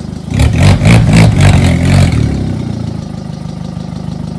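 Car engine idling, then revved in a quick series of short blips with sharp cracks for about two seconds before settling back to idle.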